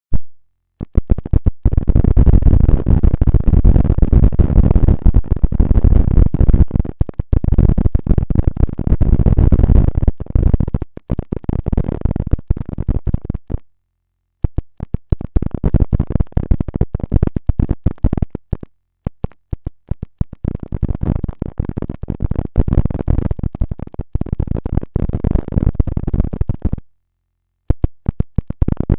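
A harsh, scratchy crackle made of many rapid clicks, running in long stretches with three short breaks of silence.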